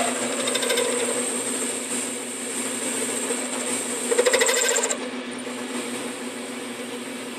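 Metal lathe running with a steady hum and high whine while the tool turns an aluminum pulley, with two spells of rapid metallic chattering from the cut, briefly near the start and louder about four seconds in.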